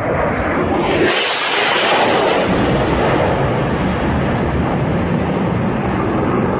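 Military fighter jet passing low overhead: a loud jet-engine roar that swells about a second in and carries on as a steady rumble, losing its hiss as the jet moves away.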